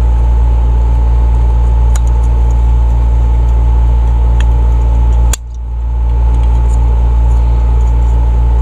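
Steady, loud low machine hum with a steady higher tone, broken by two sharp metallic clicks, one about two seconds in and one past the middle.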